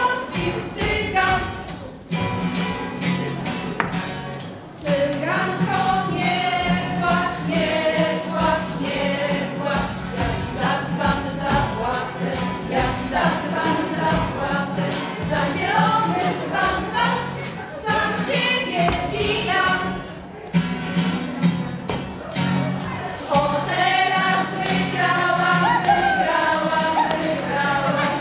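A Polish folk song sung in chorus by a women's ensemble, with jingling tambourine-like percussion keeping a steady beat.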